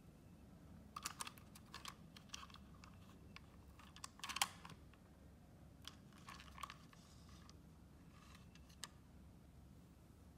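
Faint, scattered plastic clicks and taps from a doll and a small plastic toy bumper car being handled on a stone tile floor, the loudest cluster about four seconds in.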